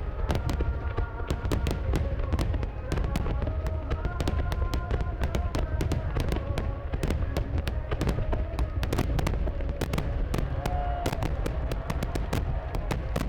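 A massed fireworks barrage: shells bursting in rapid, overlapping succession, with dense crackling over a constant deep rumble of booms.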